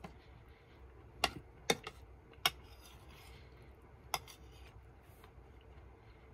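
Metal spoon clinking and scraping against a ceramic plate while scooping up food: four sharp clinks, with a short, softer scrape after the third.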